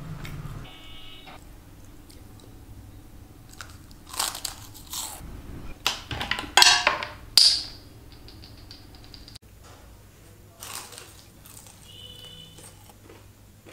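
Close-miked eating sounds: chewing and crunchy bites of food. A cluster of louder bursts falls in the middle, and a smaller one comes near the end.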